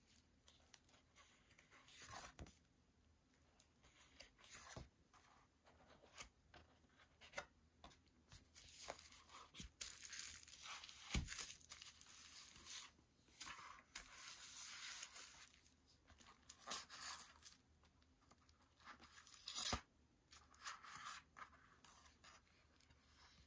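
Faint rustling and sliding of paper and card: photobook pages handled, the book set down and a card CD holder opened, with a few sharp light knocks of card on the table.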